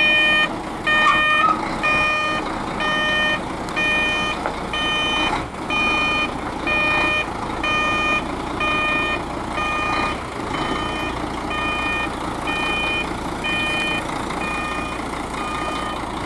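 Electronic reversing-type warning beeper on a heavy truck, sounding steady-pitched beeps at about two a second, over a diesel engine running.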